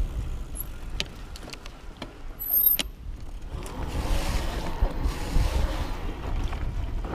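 Riding noise from a fat-tyre e-bike on snowy singletrack: wind rumble on the action camera's microphone, tyre noise, and several sharp knocks as the bike goes over bumps. A brief high-pitched squeak comes about two and a half seconds in, and the rushing noise grows louder in the second half.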